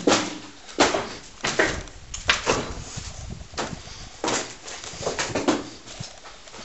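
Footsteps scuffing and crunching across a debris-strewn floor in a derelict building, about three steps every two seconds.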